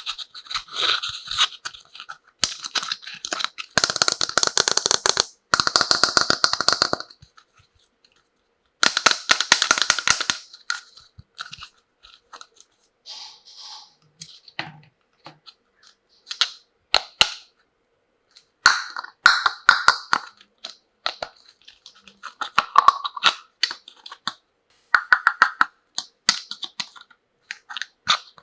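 Plastic packaging crinkling and rustling in bursts of a second or two, broken by short pauses, with small clicks and taps as toys are unwrapped and handled.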